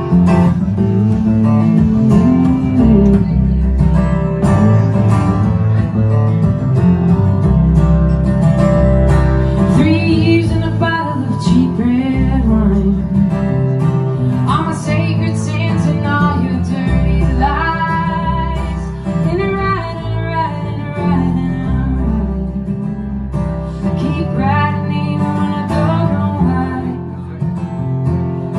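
Live acoustic guitar and plucked upright bass playing an instrumental passage of a folk song, the bass notes deep and prominent under the guitar.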